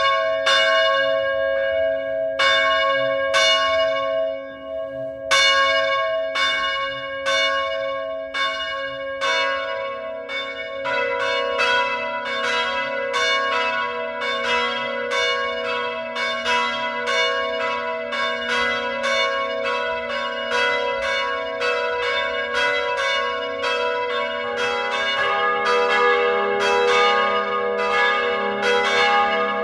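Church bells ringing: a run of struck peals, about one stroke a second at first with a short pause about four seconds in, then quicker and overlapping from about ten seconds in, each stroke's hum note ringing on beneath the next.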